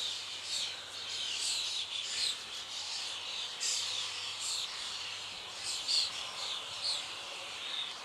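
Songbirds chirping: short, high, falling notes repeated every half second to a second.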